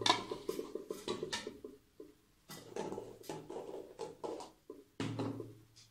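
Light clicks, taps and scrapes of shaving gear being handled on a bathroom counter, coming in quick irregular clusters with a short pause about two seconds in.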